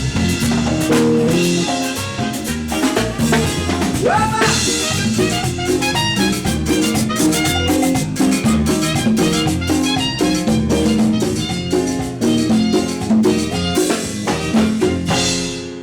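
Live band playing up-tempo Latin dance music without vocals: drum kit, bass and keyboards, with a short rising slide about four seconds in. The band stops together just before the end and the last notes ring out.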